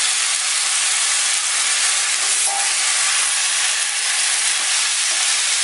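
Raw chicken pieces, just added, sizzling steadily in hot oil with onion, tomato and ginger-garlic paste: an even hiss.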